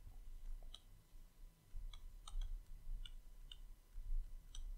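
Faint, irregular clicks and taps of a stylus on a drawing tablet while writing by hand.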